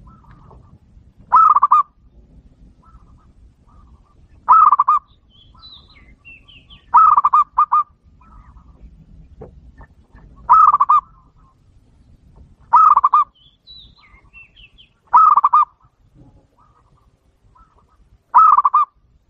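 Zebra dove (perkutut) song: seven loud trilled cooing phrases, one every two to three seconds, the clear call used as a decoy to lure wild zebra doves. Faint twittering of another small bird twice between the phrases.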